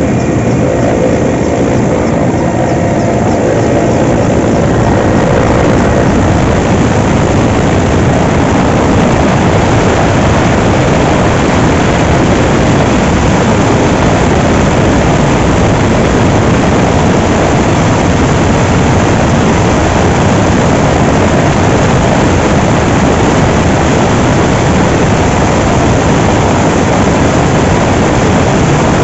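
Helicopter rotor and turbine engines running loud and steady while hovering, heard from the open cabin door. Faint steady tones sound in the first few seconds, then fade into the even noise.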